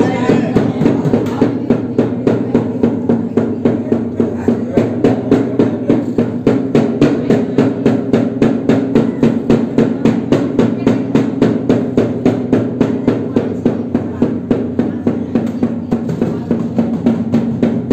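A dhol, a two-headed barrel drum, beaten in a steady, even rhythm of sharp strokes, over a steady held tone.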